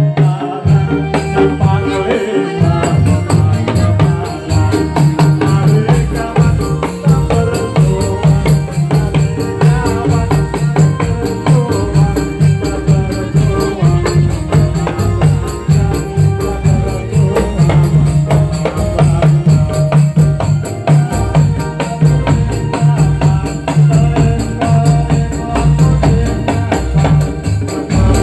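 Dolalak accompaniment music: a drum ensemble plays a steady, busy rhythm with a jingling tambourine-like beat. A deep bass drum comes in strongly about six seconds in.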